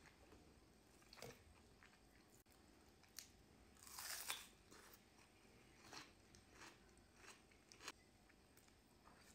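Faint mouth and eating sounds, with one crisp crunch of a bite into a raw white onion ring about four seconds in, louder than the rest. The other soft crunches and clicks are chewing.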